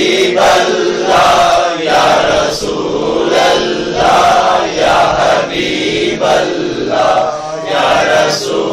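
A crowd chanting Islamic devotional phrases in unison, loud and in a steady repeated rhythm.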